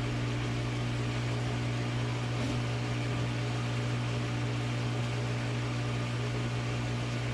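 Steady machine hum with a low droning tone and an even hiss, unchanging throughout.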